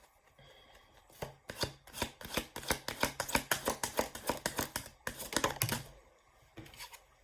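A deck of oracle or tarot cards being shuffled by hand: a fast run of papery clicks, several a second, lasting about five seconds, then a few faint taps near the end.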